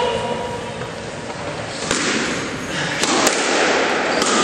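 A squash rally: the ball cracking off the racquet and the court walls several times from about two seconds in, each hit echoing in the enclosed court.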